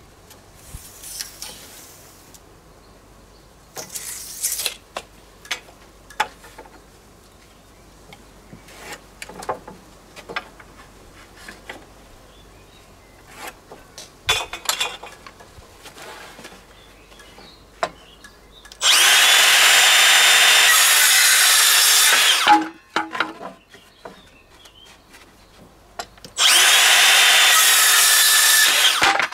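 Handheld power tool run twice, each time for about three seconds, its motor whine rising as it spins up at the start of each run, with scattered knocks and clicks of handling before and between the runs.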